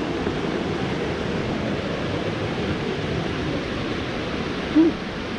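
Steady rush of flowing stream water. A brief, short pitched sound comes about five seconds in.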